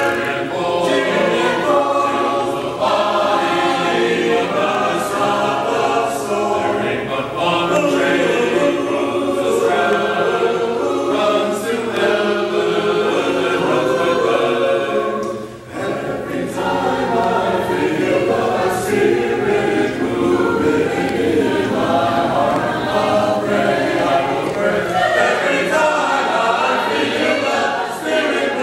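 Mixed choir of men's and women's voices singing together, with a short break in the singing about halfway through before it goes on.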